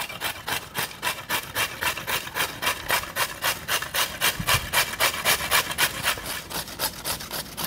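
A carrot being shredded on a hand grater (box shredder), rasping in quick even strokes of about four a second.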